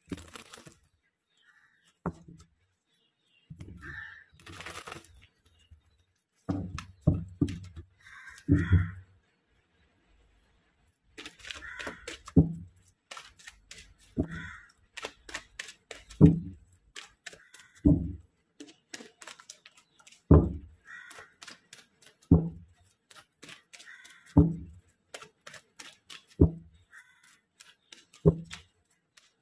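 A tarot deck being shuffled by hand: cards rustling and sliding against each other in short bursts, with a dull knock every couple of seconds as the packets land on the deck.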